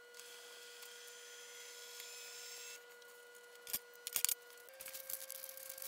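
Felt-tip marker drawing along paper, a faint scratchy rubbing for a couple of seconds as the outline of a sheet-metal tray is traced. Then two short knocks as the metal tray is set down on the wooden bench, over a faint steady electrical hum.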